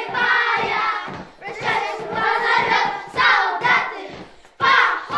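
A chorus of young boys singing together in unison, in phrases of a second or so with short breaks.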